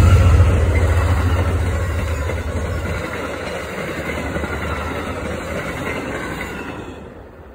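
Amtrak passenger train's coaches rolling past on the rails in a loud, steady rush. The heavy low rumble drops away about three seconds in, and the noise fades as the last cars go by near the end.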